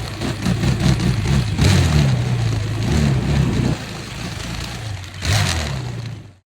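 A vehicle engine revving up and down, with two short surges of noise; the sound cuts off suddenly near the end.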